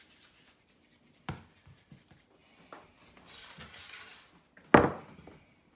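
Hands working tortilla dough balls on a floured marble counter: soft rubbing and scraping, a sharp click just over a second in, about a second of scraping around the middle, and a loud sharp knock near the end.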